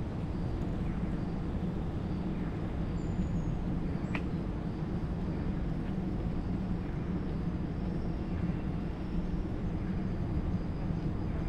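Steady low rumble of distant city traffic, with a brief faint high chirp about four seconds in.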